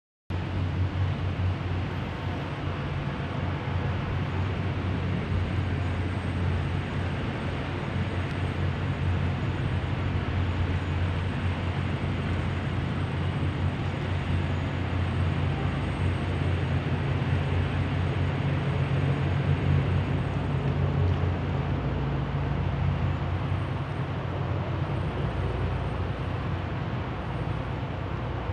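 A steady low engine drone over a constant wash of city noise, unchanging throughout.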